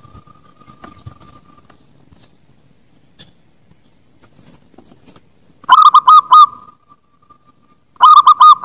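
Zebra dove (perkutut) cooing: two quick runs of four clipped, high coo notes, one about two-thirds of the way in and another starting near the end, with a faint held note trailing after the first run. The opening seconds are quiet.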